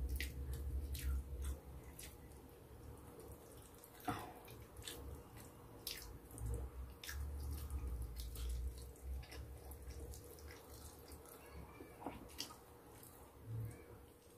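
Faint eating sounds of roast chicken being pulled apart by hand and chewed: scattered wet mouth clicks and smacks, with low rumbles of the food and tray being handled.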